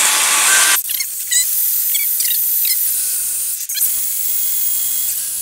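A 1 5/8-inch hole saw on a cordless drill cutting slowly through a plastic body panel: a steady hissing rasp broken by several short squeaks.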